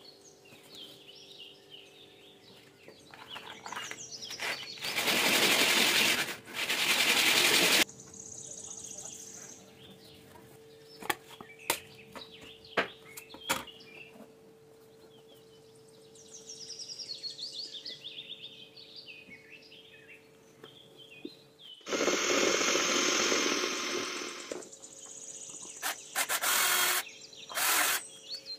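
Electric drill with a step bit boring through a plastic disc, in several loud bursts of a few seconds each, two short ones near the end. Birds chirp in the background between the bursts.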